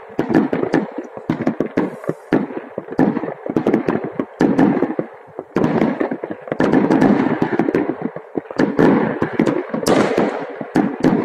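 Many aerial fireworks going off at once: a dense, continuous run of bangs and crackles, with a sharp, loud bang near the end.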